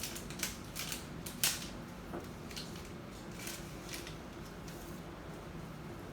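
A handful of light clicks and rustles from small objects being handled, the sharpest about a second and a half in, over a faint steady hum.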